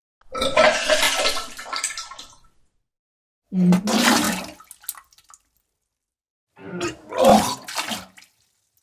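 A person vomiting in three heaves: first a long gush of liquid splashing out, then two shorter retches where a low gagging voice breaks into a splashing heave.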